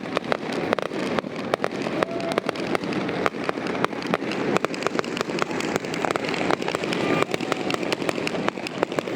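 Fireworks display: a dense, irregular run of pops and crackles over a steady background hubbub.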